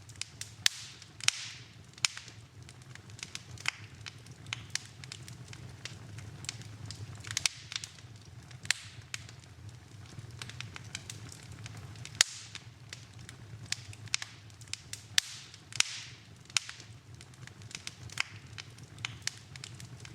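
Wood fire in a fireplace crackling: irregular sharp pops and snaps, often a second or two apart, over a soft steady hiss and low rumble of the burning.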